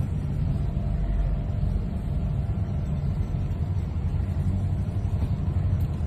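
Steady low engine rumble of the navy patrol boat T.111, heard from inside its wheelhouse.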